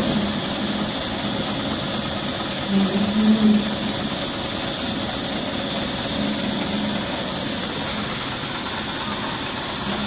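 An engine idling steadily, with a brief louder low swell about three seconds in.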